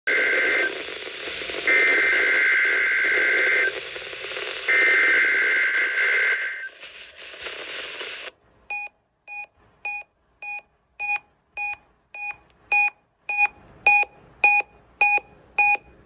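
Reecom NOAA weather alert radio receiving an EAS Required Weekly Test: the SAME data header plays as warbling two-tone bursts over radio static, the tail of one burst and then two more, each about two seconds long with a second's gap. After the static cuts out, the radio's alert beeper sounds short, sharp beeps about two a second, growing louder.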